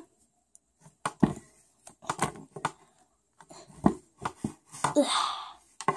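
Plastic toy pet figures tapping and knocking on a wooden tabletop as they are handled, a scatter of short irregular clicks, with a short rustle about five seconds in.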